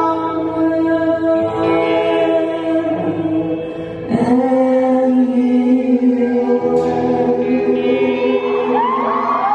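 Live band playing: a singer holds long sung notes over electric guitar and drums, moving to a new sustained chord about four seconds in.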